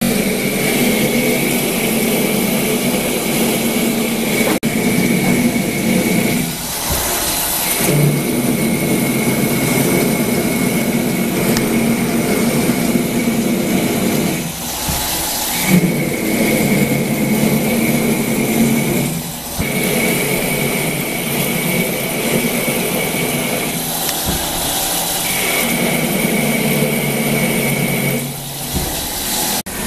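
CNC lathe turning a shaft with a WNMG carbide insert under flood coolant: steady machining noise with a high tone and coolant spray hiss. It breaks off briefly several times as the tool finishes a pass and moves back for the next.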